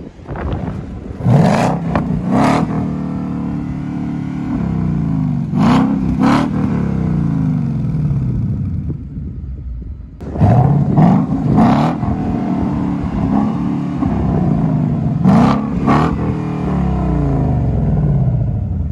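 Ford Mustang GT's 5.0 V8 revved hard four times through its exhaust, each rev dying away slowly. Each rev brings a pair of sharp cracks.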